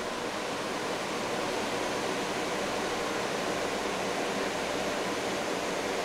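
Steady rushing whoosh of a GPU mining rig's cooling fans, a row of 120 mm case fans plus the graphics cards' fans, running just after the rig is powered on to boot.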